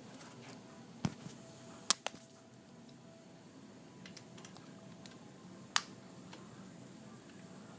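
A few sharp metallic clicks and taps, the loudest about two seconds in, as the seat post and its clamp bolt are handled and fitted into the bike frame.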